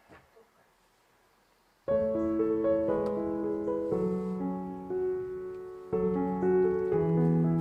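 Near silence, then piano music starts suddenly about two seconds in and plays on with changing chords.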